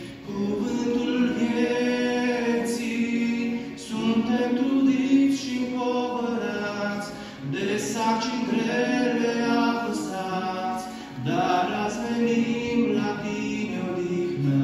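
A man singing a slow Christian worship song in Romanian, in phrases with short breaks between them, while strumming an acoustic guitar.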